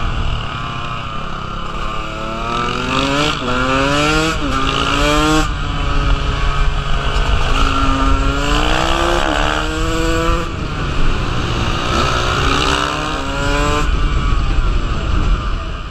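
KTM 125 dirt bike engine pulling hard through the gears, its pitch climbing in several runs that each break off at a shift or throttle lift, with wind rushing over the microphone.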